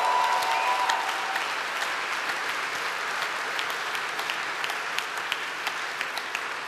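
A large audience applauding, a dense patter of many hands clapping that is loudest at the start and slowly eases off.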